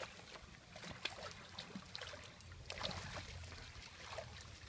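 Faint, scattered splashing of water as a hooked redtail catfish thrashes at the surface and is scooped up in a landing net.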